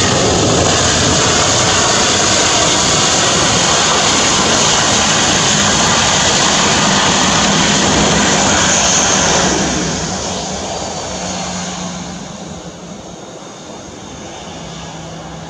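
Boeing 737-800 jet engines (CFM56-7B turbofans) running loud during the landing roll-out on the runway. The sound drops off steadily from about ten seconds in as the airliner slows and moves away.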